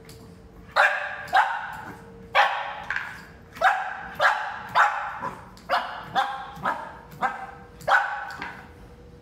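Young boxer puppy barking in short, sharp barks, about a dozen of them roughly half a second apart, starting a little under a second in.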